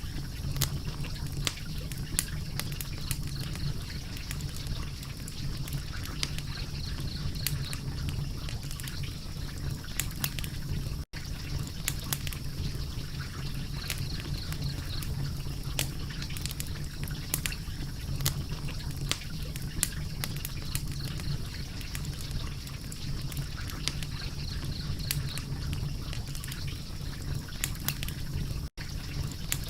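Wood fire crackling steadily: a constant low rumble of flames with many sharp, irregular pops and snaps, broken by two very brief dropouts.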